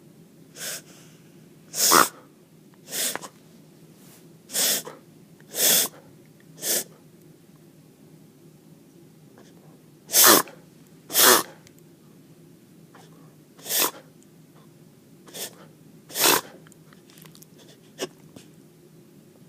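A pet coughing in a fit: about a dozen short, sharp coughs, roughly one a second, with a pause of a few seconds in the middle.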